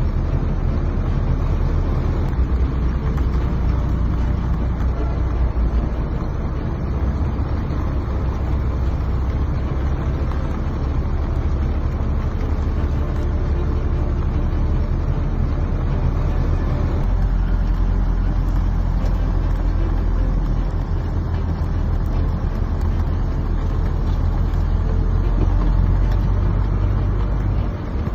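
A vehicle driving through a flooded road in heavy rain: a steady low rumble of engine and road noise mixed with the hiss of rain and water. The sound shifts slightly about seventeen seconds in.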